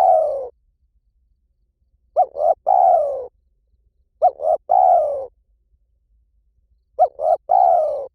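Spotted dove cooing: a repeated phrase of two short coos followed by a longer coo that falls in pitch, about every two and a half seconds, three full phrases after the tail of one at the start.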